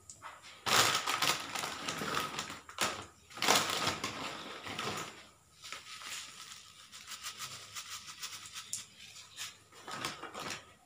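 Cumin seeds crackling in hot oil in a kadai as a tadka is tempered, a dense patter of small pops. It comes in two loud spells in the first half, then settles to a lighter, steady crackle.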